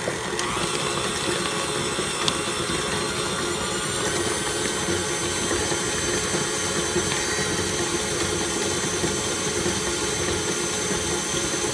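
KitchenAid Artisan tilt-head stand mixer running at a steady speed, its flat beater turning through cake batter in the steel bowl: an even motor hum with a high whine.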